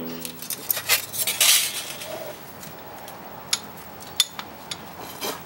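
Thin steel saw-blade scrapers and hand tools clinking and clattering as they are handled on a workbench, with a short sliding scrape about a second in and a few separate sharp clinks after.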